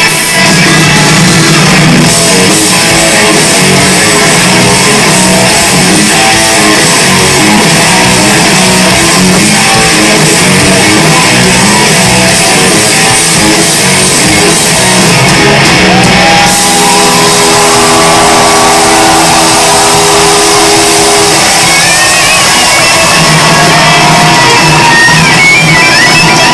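Live hard rock band playing electric guitars, bass and drums, captured very loud on a pocket camcorder's microphone. A few long held notes ring out about two-thirds of the way through, and gliding notes come near the end.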